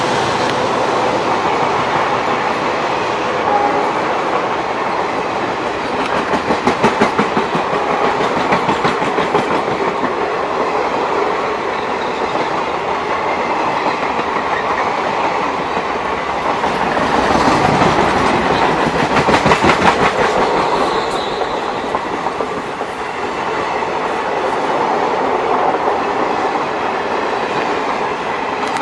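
Blue passenger coaches of a train rolling past on the near track, their wheels clicking rhythmically over the rail joints. The clickety-clack grows louder twice, about six seconds in and again about seventeen seconds in.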